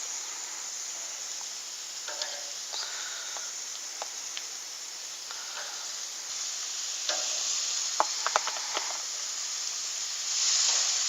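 Oiled chicken pieces sizzling as they are laid on a hot grill, the sizzle swelling as more pieces go down, with a few sharp clicks about two thirds of the way in.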